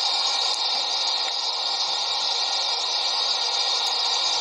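Steady hiss like static, even and unchanging, with no voice over it.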